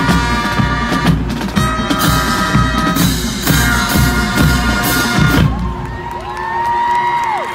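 Marching band playing brass chords over drums and bass drum, with a brief break about three seconds in; the band stops about five and a half seconds in and the crowd cheers.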